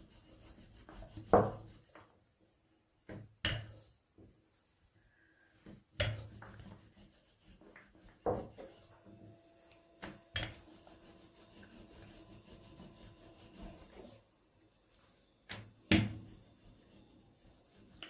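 Wooden rolling pin rolling out a thin round of dough on a silicone mat: soft rubbing strokes broken by several irregular sharp wooden knocks as the pin is set down and picked up, the loudest about a second in.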